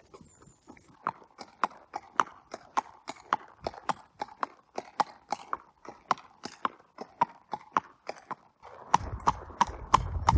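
A Thoroughbred ex-racehorse's hooves clip-clopping at a walk on a hard path and tarmac road, an even beat of about three to four hoof strikes a second. A steady rushing noise joins in under the hoofbeats near the end.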